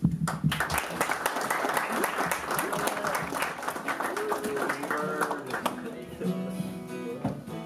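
Audience applauding, dying away after about five seconds as an acoustic guitar begins picking slow single notes and chords.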